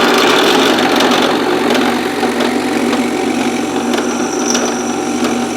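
Drill press running steadily while drilling a small pilot hole, its motor hum under the noise of the cut, with a faint high squeal near the end.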